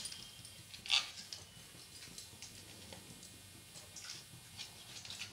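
A knife trimming the brown crust off a slice of white bread on a steel plate: faint scraping with a few light clicks of the blade, the loudest about a second in.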